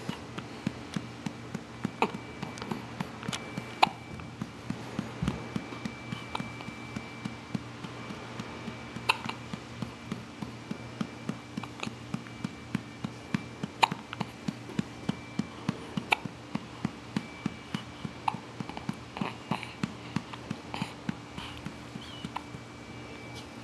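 A baby hiccupping over and over: short, sharp hiccups in a quick, fairly regular run, over a steady low hum.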